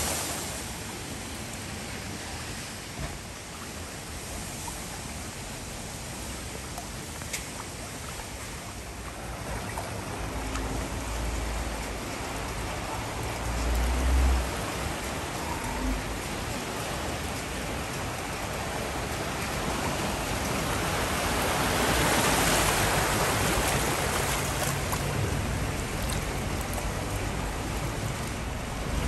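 Rushing, splashing floodwater in a street as cars and vans wade through it. The steady wash of water runs throughout, a low vehicle rumble swells about halfway through as a car pushes past, and the water noise grows louder later on.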